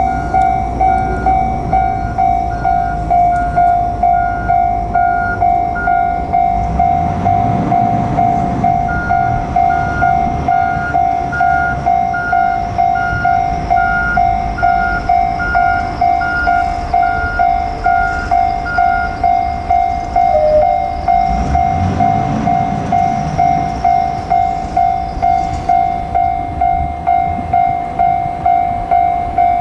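Japanese railway level-crossing alarm bell ringing steadily, about one and a half strokes a second, warning that a train is approaching. A low rumble swells under it about a quarter of the way in and again about three quarters in.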